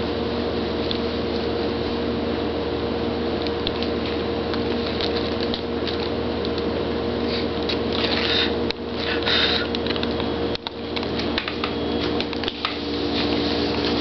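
A steady mechanical hum with fixed pitches, like a fan or appliance running, with two short higher hissing sounds about eight and nine seconds in.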